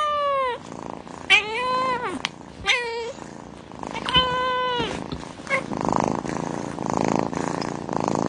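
A tabby cat meowing five times, long cries that rise and then fall in pitch, the third and last of them brief, then purring steadily over the last few seconds.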